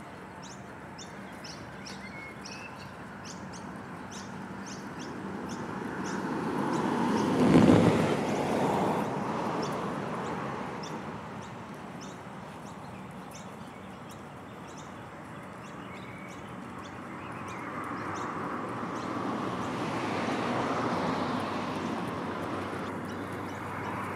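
Birds chirping over passing road traffic: one vehicle swells to a peak about seven and a half seconds in and fades, and another passes more gently in the second half.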